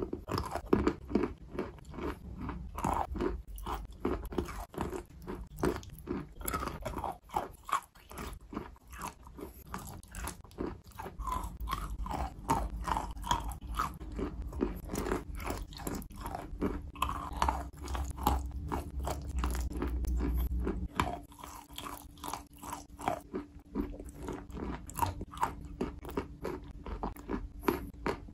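Close-up chewing of soaked chalk chunks: a dense run of small, crisp crunches and crackles, several a second.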